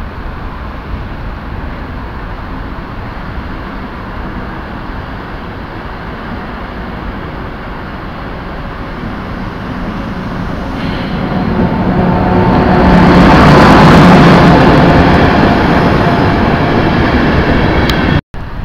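Steady rumble of a moving train heard from on board. Then an electric locomotive hauling InterCity coaches comes past close by: its motor whine and wheel noise grow loud about thirteen seconds in and ease off as the coaches roll by.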